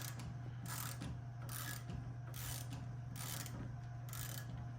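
Hand ratchet turning a bolt with a hex bit socket, giving a short burst of ratchet clicking on each back-swing about every 0.8 seconds, over a steady low hum.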